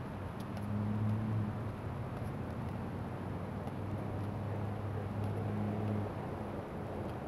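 A low, steady engine hum that sets in about half a second in and stops about six seconds in, with a few faint slaps of boxing gloves on focus mitts.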